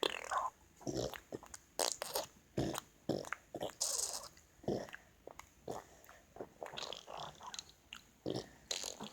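A boy making fart noises, a rapid irregular string of short sputtering blurts, roughly two a second.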